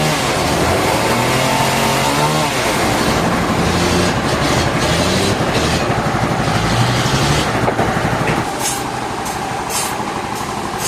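An engine running and changing speed, its pitch rising and falling several times, then falling off about eight seconds in. A few short hisses follow near the end.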